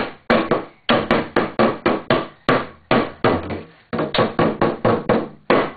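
Bangladeshi dhol, a two-headed barrel drum, beaten with a stick in a quick, uneven beat of about four strokes a second, each stroke dying away quickly.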